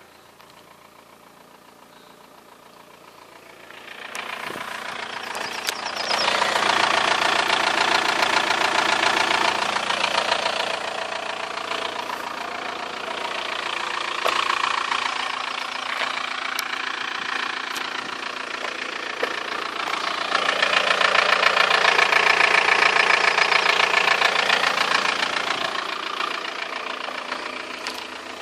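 Audi A6's 1.9 TDI four-cylinder turbodiesel engine running. It is faint for the first few seconds, much louder from about four seconds in, and swells louder twice.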